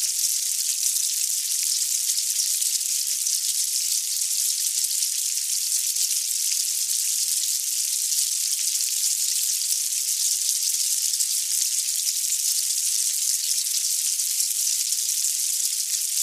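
Fire ants swarming: a steady, dense high-pitched crackle of countless tiny clicks that keeps up without a break.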